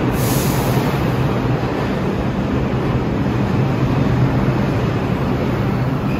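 New York City subway train pulling into a station and slowing along the platform: a loud, steady rumble of wheels and traction motors, with a brief hiss at the very start.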